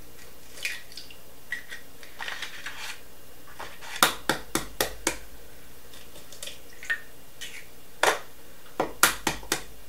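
Eggs being cracked: clusters of quick, sharp taps of eggshell against a hard edge, about four seconds in and again near the end, with quieter handling sounds of shells being pulled apart in between.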